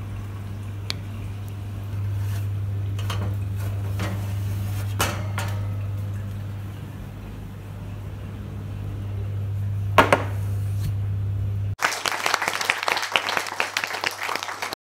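Oven running with a steady low hum just after it is switched on, with scattered clicks and knocks, the sharpest about ten seconds in. For the last few seconds the hum gives way to a harsh crackling rustle.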